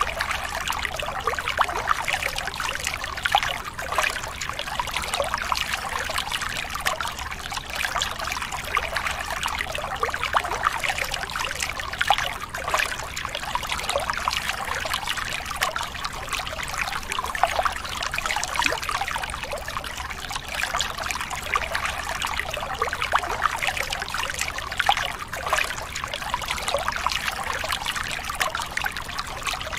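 A thin stream of water trickling and splashing onto plastic toy vehicles and wet concrete, rinsing off caked mud. Steady and unbroken.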